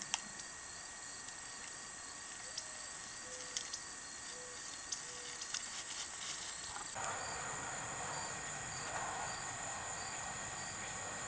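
Steady high-pitched drone of insects such as crickets, shifting slightly lower in pitch about seven seconds in.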